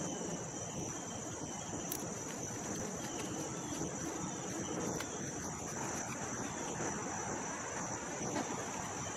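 Steady high-pitched insect chirring over even outdoor background noise.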